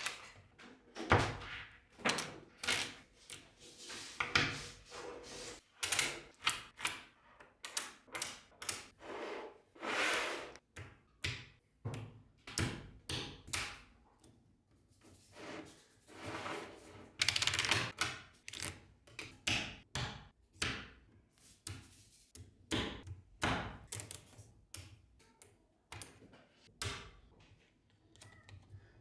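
Small magnetic balls clicking and snapping together, irregularly, a few times a second, with short rattling scrapes as they are rolled and pressed into place.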